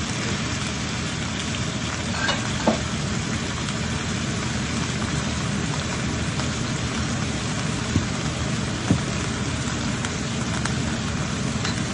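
Ginger and spring onion sizzling in hot oil in a pan, with rice wine and sugar just added: a steady hiss, with a few light knocks.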